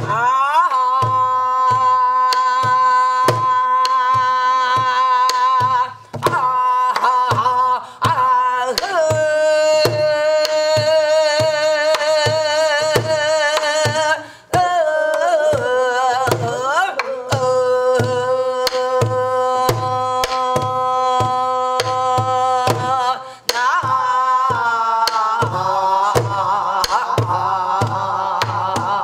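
Pansori singing: a woman holds long, wavering sung notes with gliding slides between them. Steady strokes on a buk barrel drum accompany her, coming quicker near the end.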